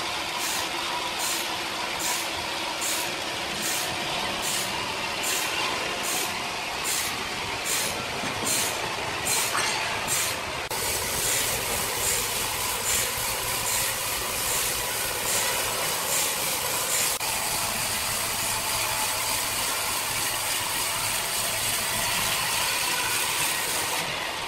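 Horizontal band sawmill running, its band blade cutting lengthwise through a large timber beam: a steady mechanical din. For the first ten seconds a regular high pulse comes about twice a second, after which the sound runs steady.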